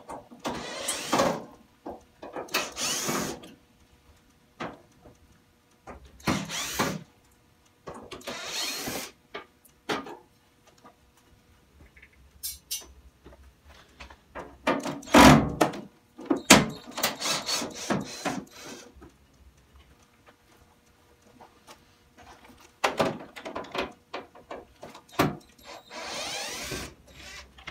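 Cordless drill-driver running in short bursts of about a second each, backing out the screws that hold a washing machine's metal frame brackets, with handling noise between the bursts.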